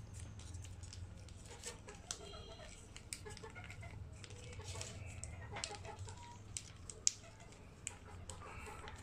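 Faint clicks and crinkles from a plastic mayonnaise sachet being squeezed over a bowl and a spoon against the bowl, with a sharper click about seven seconds in. Chickens cluck in the background over a steady low hum.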